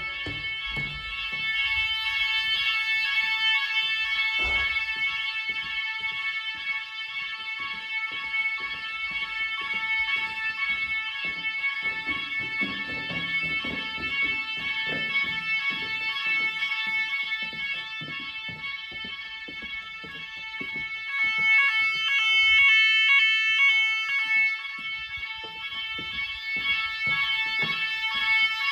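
Nugelec fire alarm sounding during a test: a steady, shrill sound made of several pitches at once. About three-quarters of the way in it grows louder for a few seconds, with a fast pulsing. Light clicks are scattered underneath.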